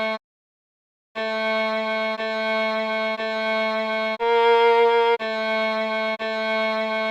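Viola playing a slow melody in single held notes of about a second each. The notes begin about a second in after a short gap, repeat on one pitch, rise to one louder, higher note midway, then return to the first pitch.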